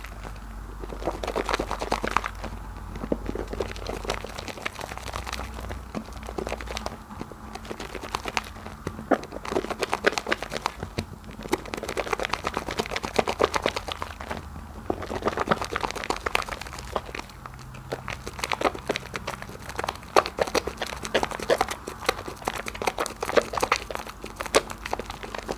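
Hands squeezing and kneading thick soap lather and a soap bar in a bucket of foam: dense fine crackling in waves that swell with each squeeze and ebb between them.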